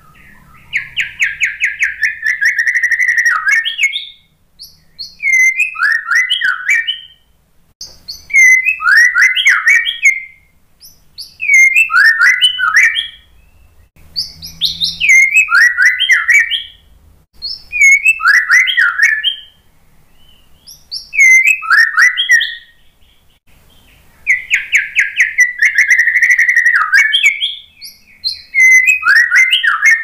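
White-rumped shama song: short whistled phrases repeated every two to three seconds, with a long, fast trill near the start and again a little before the end.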